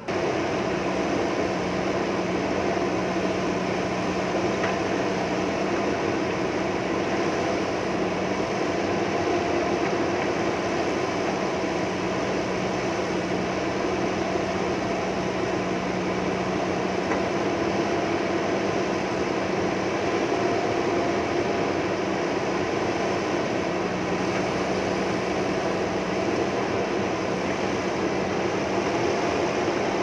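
JCB backhoe loader's diesel engine running steadily while its backhoe arm digs, an unbroken drone with a steady hum.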